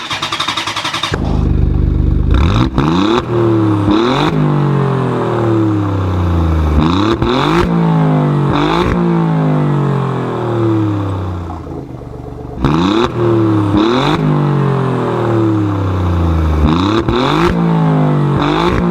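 Car engine being revved again and again: each time the revs jump up quickly, then slowly fall away. The revs overlap, with a few sharp clicks among them, and the sequence repeats about halfway through.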